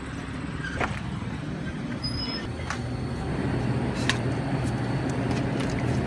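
A car running, a steady low engine hum and road noise, with a few faint clicks.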